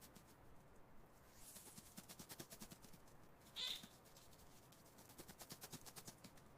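A mouse scurrying makes faint, rapid scratchy ticks, about ten a second, in two runs. Between the runs, a little past the middle, comes one short high-pitched squeak.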